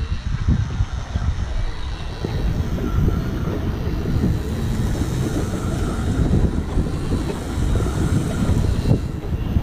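Fish Winch 2.0 electric drive on a Penn International reel winding in line under load: a faint steady motor whine under a heavy low rumble of wind on the microphone.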